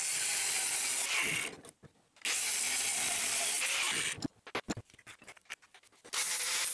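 Angle grinder cutting steel flat bar, running steadily in three stretches with short breaks. Between the second and third stretch come a few clicks and knocks from handling a screw clamp and the metal.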